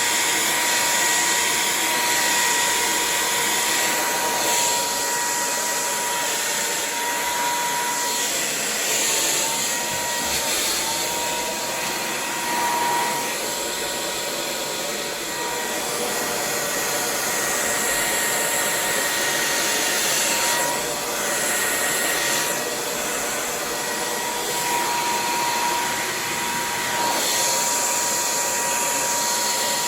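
Hair dryer running steadily: a rush of air with a high whine that wavers slightly in pitch.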